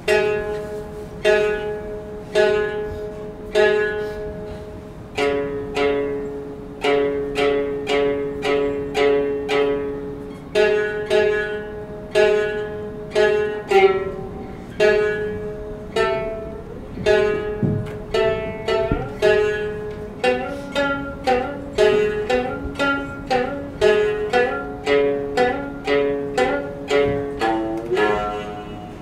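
Futozao (thick-neck) shamisen played solo in gidayu style for the puppet play: plucked notes struck one at a time and ringing out, about one a second at first, then quickening, with a few sliding notes about two-thirds of the way through.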